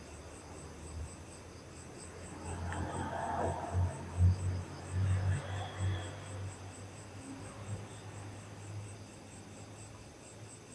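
Crickets chirping steadily in a high, even pulse of about four chirps a second. Faint low rumbling and rustling from about two to six seconds in.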